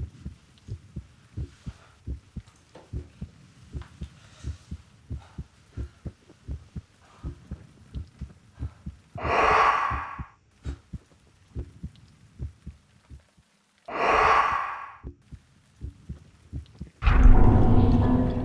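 Heartbeat sound effect: a steady train of quick low thumps. It is broken twice by a loud rushing swell that rises and dies away over about a second, and near the end a loud deep hit.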